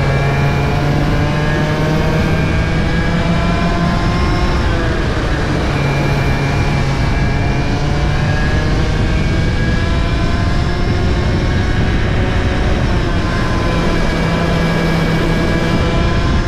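Cadet racing kart's two-stroke engine at full race speed, its pitch climbing along the straights and falling away for the corners several times, with wind rush on the onboard microphone.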